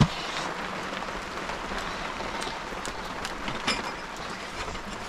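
Steady rain falling, with scattered sharp ticks through it and a single knock at the very start.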